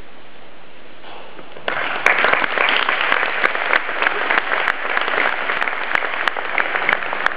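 Audience applauding: dense clapping breaks out about two seconds in over a steady background hiss and continues.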